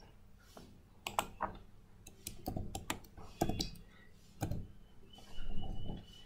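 Computer keyboard being typed on: scattered single key clicks at an uneven pace, starting about a second in.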